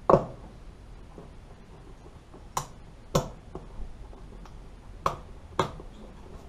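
Five sharp plastic clicks, the last four coming in two pairs, from a push-fit switch with spring clips being pressed and worked in its rectangular hole in a plastic battery box lid.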